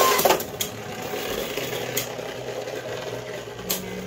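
Two Beyblade Burst spinning tops in a clear plastic stadium just after launch: a loud clatter at the start as they land, then a steady whirring rasp as they spin on the plastic floor, with a few sharp clicks where they knock together.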